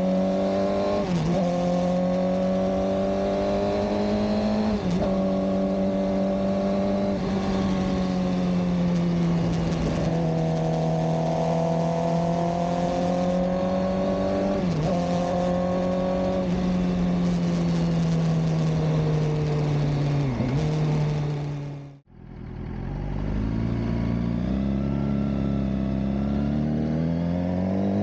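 Suzuki GSX-R600 K7 inline-four engine running at high, steady revs under way, with several brief dips in revs as the throttle comes off and back on. About three quarters of the way through, the sound drops out for a moment. It then returns at low revs and climbs steadily as the bike accelerates.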